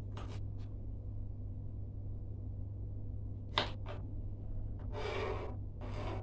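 Kitchen knife chopping through okra onto a plastic cutting board as the pod tops are cut off: a few short sharp taps, the loudest about three and a half seconds in, with a brief hiss near the end, over a steady low hum.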